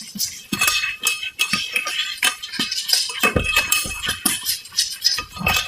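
Kitchen utensils and dishes clinking and knocking during food preparation: many quick clinks, with a couple of dull knocks a little past halfway and near the end.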